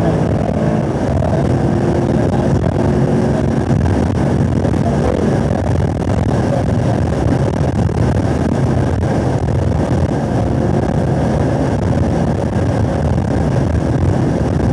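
2017 Camaro SS 1LE's 6.2-litre V8 running at high revs at over 100 mph, heard from inside the car under steady wind and tyre noise. It shifts up from third to fourth gear, and near the end it lifts off as the car slows.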